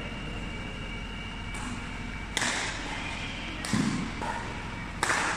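Badminton rally: rackets striking the shuttlecock in four sharp hits about a second apart, the first faint and the last loudest, one of them with a dull thud underneath.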